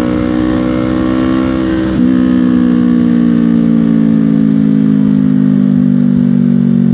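Kawasaki ER-6N's 649cc parallel-twin engine running loud and steady through an SC Project aftermarket exhaust at highway speed, pitch climbing slightly. About two seconds in there is a brief catch and the exhaust steps louder, then the engine note slowly sinks in pitch.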